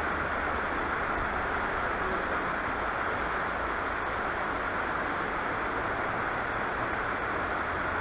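River water rushing steadily over a low weir and rocks, with a low rumble underneath.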